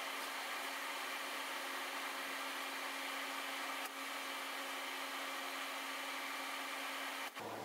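Fiber laser cutter cutting 16-gauge steel sheet with oxygen assist gas: a steady hiss with a low steady hum beneath it. The sound changes abruptly near the end.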